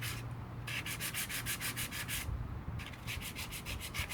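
Coarse 50-grit sandpaper rubbed by hand over the cured filler putty of a Bakelite steering wheel. It runs as quick back-and-forth strokes, about six a second, in two runs with a brief pause between.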